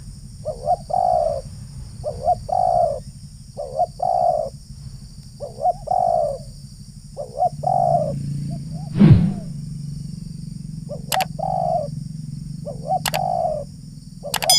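Spotted dove (terkukur) cooing over and over, a short hooked coo phrase repeated about every second and a half. A louder dull thud comes about nine seconds in, and a few sharp clicks sound near the end.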